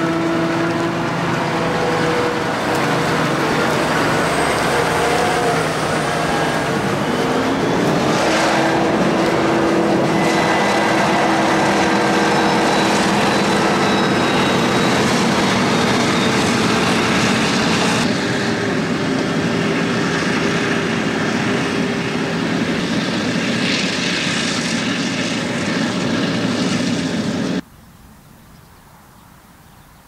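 Claas Jaguar 970 forage harvester running under load while chopping maize: a loud, steady engine-and-machinery hum with several whining tones, whose pitch rises once about a quarter of the way in. Near the end the sound cuts off suddenly to a faint background.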